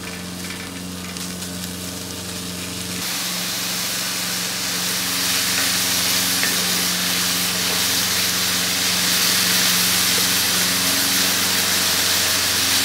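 Bacon sizzling as it renders its fat in a deep pan on a gas stool burner, with a steady low hum underneath. The sizzle jumps louder about three seconds in.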